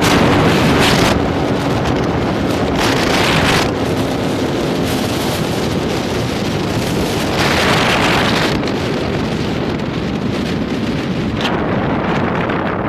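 Wind buffeting hard on the microphone of a moving motorcycle, rising in three gusts, with the Yamaha DT175's two-stroke single-cylinder engine faintly underneath. The engine's steady note fades out in the first few seconds.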